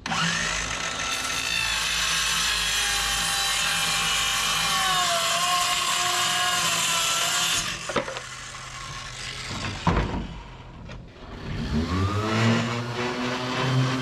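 Circular saw ripping through half-inch plywood for about eight seconds, its pitch sagging under load about five seconds in, then the saw cuts off. A couple of knocks follow, and near the end a palm sander starts up, its pitch rising as it spins up.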